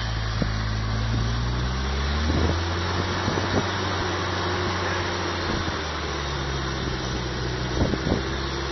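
Off-road 4x4's engine running under load as it climbs a steep, leaf-covered bank; the revs rise about two seconds in, then hold steady. A few short knocks sound over it.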